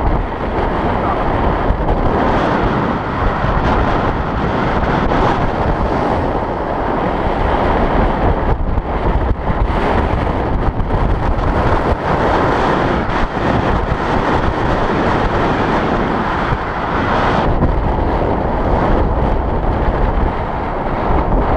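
Wind rushing and buffeting over the microphone of an action camera on a bicycle riding downhill at speed, loud and steady with brief flutters.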